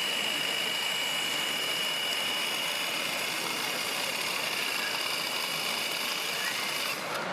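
Small motor of a radio-controlled model running with a steady high whine over a constant hiss of noise. The whine cuts off abruptly near the end.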